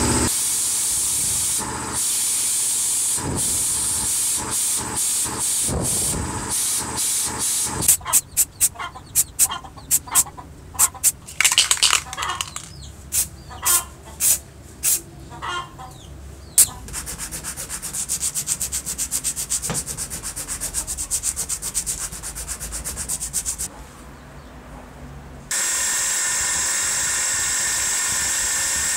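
Bench grinder running with a wire brush wheel as a jigsaw motor armature is scrubbed clean, then about a dozen short hissing spray bursts as the armature's fan is spray-painted. Near the end the grinder starts up again, this time with a buffing wheel spinning.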